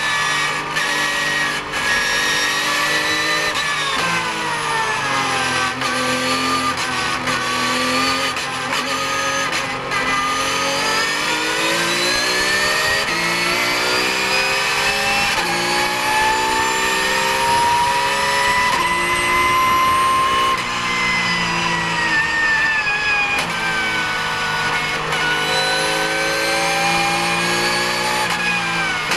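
Porsche 991 GT3 Cup race car's flat-six engine heard from inside the cockpit, revs dropping for a corner early on, then climbing in a long pull and dipping and rising again.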